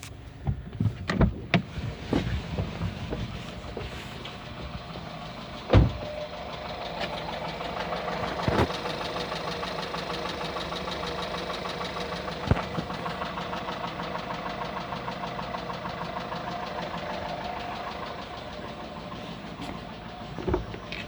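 1.4 TSI 122 hp turbocharged four-cylinder petrol engine idling cold with a fast, even rattle, a sound that goes away once the oil warms up and remains after a complete timing chain set replacement. A few sharp knocks in the first seconds and about six seconds in.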